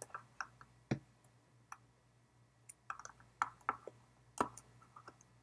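Faint, irregular clicks and taps of fingers and fingernails on the plastic underside of a Logitech M305 wireless mouse as its adhesive feet are pressed back on, with a small cluster a little past the middle.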